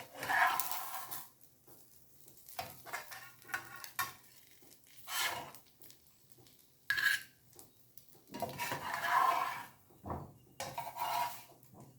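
Metal utensil scraping and clinking against a frying pan in about six short bursts, one a sharp ringing clink about seven seconds in, as the cooked fried egg is worked loose and lifted out.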